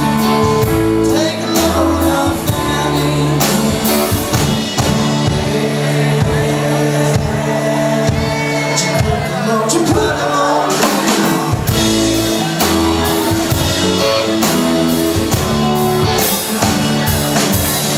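Live rock band playing in a hall, with singing over lead guitar, bass guitar, keys/organ and drums keeping a steady beat.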